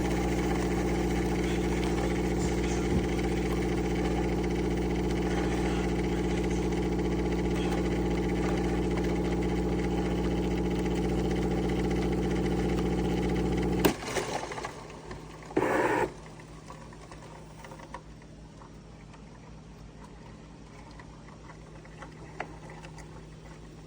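An appliance motor running with a steady, even hum, which cuts off abruptly about fourteen seconds in with a click. A brief louder burst follows, then only a faint low hum.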